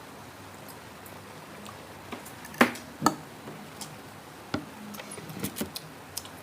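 Eating crispy pork belly: scattered crunches and clicks of bites and utensils, the two loudest about half a second apart a little before the middle, with smaller ones after.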